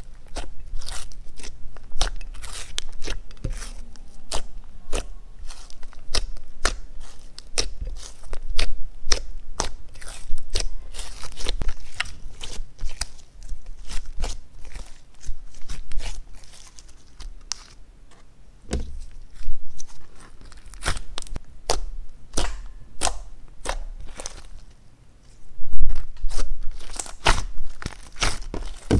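Thick slime with makeup, glitter and clay mixed in, squeezed, stretched and kneaded by hand: a dense run of sticky clicks and pops that eases off briefly twice.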